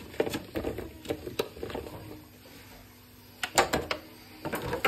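Strawberries being dropped by hand into a plastic colander: a series of soft, uneven knocks and taps, with a louder cluster about three and a half seconds in and more near the end.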